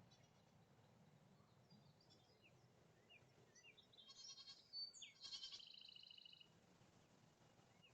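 Goat kid bleating twice, in two quavering, high-pitched calls about halfway through, while small birds chirp faintly now and then.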